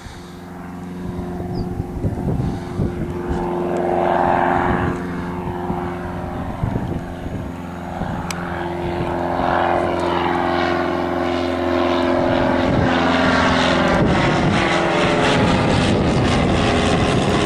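A 1946 Piper J-3 Cub's piston engine and propeller running in flight, growing steadily louder as the plane approaches and loudest in the last few seconds.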